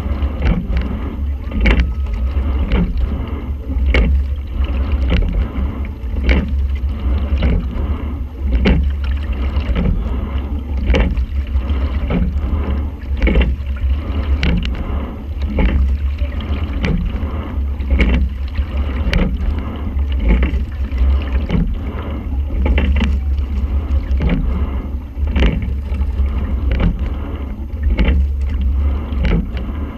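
Quad scull being rowed, heard from a camera in the boat: the sculls knock in their oarlocks at regular strokes about once a second, over a constant low rumble of water and wind.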